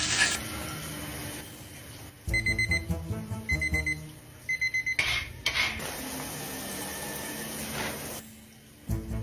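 Electronic beeping in three short rapid bursts about a second apart, followed by a steady rushing hiss that lasts about three seconds.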